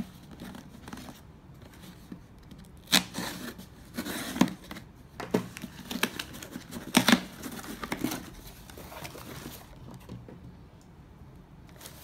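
Packing tape on a cardboard shipping box being slit and torn, in irregular sharp rips, with the scrape and rustle of the cardboard flaps being pulled open. The loudest rips come about three seconds in and again about seven seconds in.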